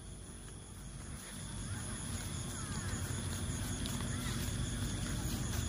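Low, steady outdoor background noise that slowly grows louder, with faint distant voices.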